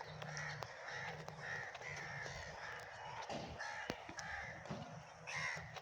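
Crows cawing repeatedly, several short calls a second, overlapping one another.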